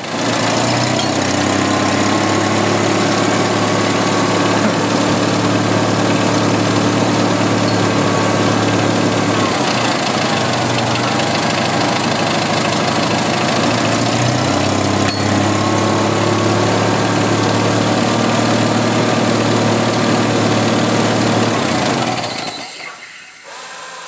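A 1986 Jeep Cherokee XJ's 2.5-litre four-cylinder engine idling steadily. Its note changes for several seconds in the middle while the crankcase ventilation hose is worked, a sign of the large vacuum leak through the wrongly set-up ventilation fitting. About 22 seconds in the engine is switched off and the sound stops.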